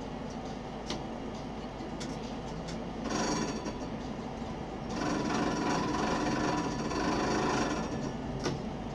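Tram running along street track, heard from the driver's cab: a steady low hum and rumble, with two louder stretches of whirring and several held tones about three and five seconds in, around the time an oncoming tram passes close alongside.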